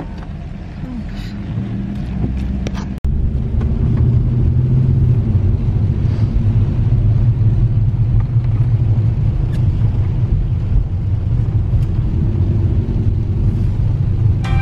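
Steady low rumble of a car driving, heard from inside the cabin. It drops out for an instant about three seconds in and comes back louder.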